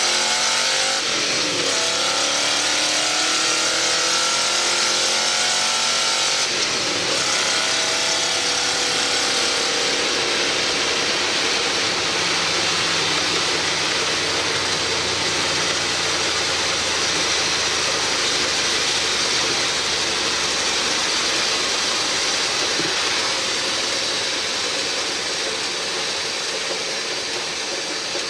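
Boss 302 small-block V8 in a 1976 Ford F100 pickup accelerating hard, climbing in pitch through the gears with shifts about a second and a half and seven seconds in, then settling into a steady cruise. Heard inside the cab, with wind and tyre noise.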